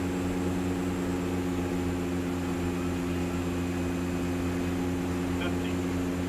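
Steady drone of a DHC-6-300 Twin Otter's two Pratt & Whitney PT6A-27 turboprop engines and propellers, heard inside the cockpit on final approach. There is a faint high whine over an even rush of noise.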